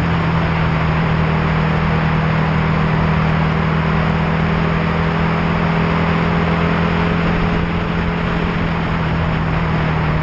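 Steady engine hum and rushing road and wind noise from a vehicle cruising at a constant speed, heard from on board; the engine note holds one pitch throughout.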